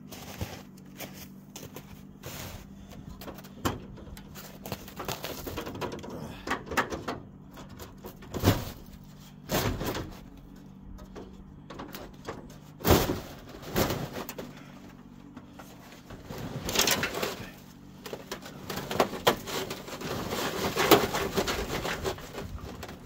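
Snow being brushed and pushed off the hood of a 1978 farm truck by hand, with footsteps in snow and scattered knocks and scrapes against the sheet metal. Near the end the hood is unlatched and swung up.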